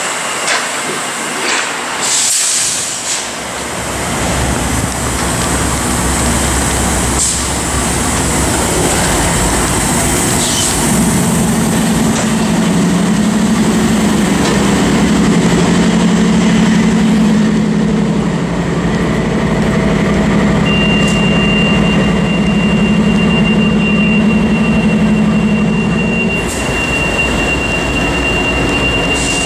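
Amtrak diesel locomotive running steadily at the platform, a constant low drone and hum, with a few sharp clicks in the first seconds. A thin, steady high whine joins about two-thirds of the way through.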